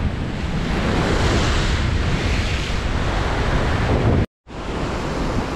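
Ocean waves surging and breaking against a rocky shore, with wind buffeting the microphone as a heavy low rumble. The sound cuts out completely for a split second about four seconds in, then carries on slightly quieter.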